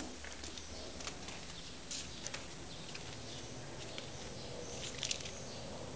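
Faint, scattered scratches and taps of a kitten's claws and paws scrabbling on a wooden floor as it hunts, over a low steady background hum.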